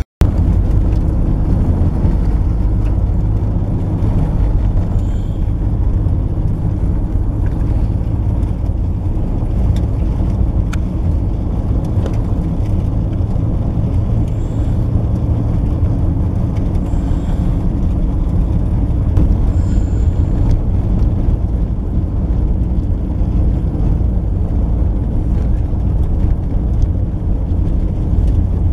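Steady low rumble of a car driving, engine and road noise heard from inside the vehicle.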